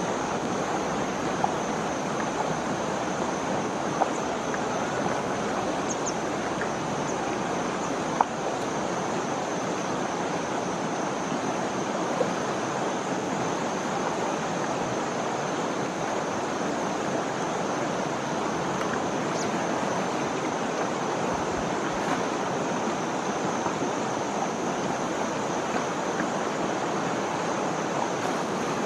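Steady rush of a flowing river, with a few brief sharp clicks over it.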